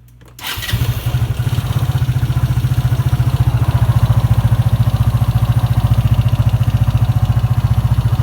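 PGO Tigra 150 scooter's single-cylinder engine starting about half a second in, then idling with a steady, rapid metallic 'da-da-da-da' knock. The knock persists after a new cam chain tensioner, which the owner puts down to the valvetrain and a worn timing chain.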